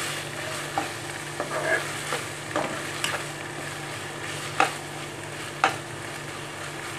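Mashed pumpkin curry sizzling in a pan as a spatula stirs it, with a few sharp knocks and scrapes of the spatula against the pan.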